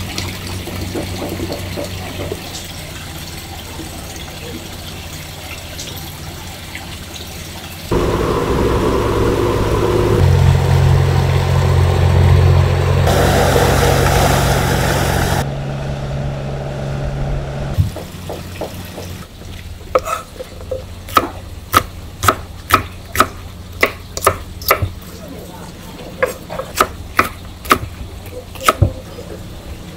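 Kitchen food-preparation noise: a steady haze, then a louder stretch with a steady low hum and a bright burst of noise for a couple of seconds, then a quick run of sharp knocks, about two a second, through the last third.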